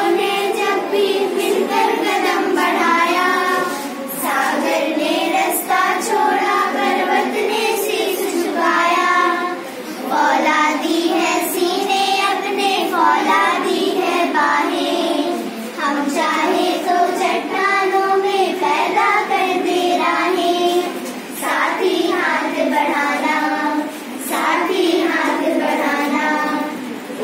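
A class of children reciting a Hindi poem together in a sing-song chorus, phrase by phrase, with short breaks every few seconds between lines.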